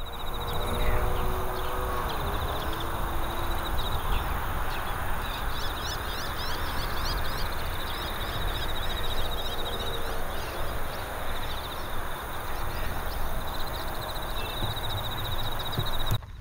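Wild birds calling, with rapid high trills and a few short lower calls, over a steady outdoor background hiss and rumble.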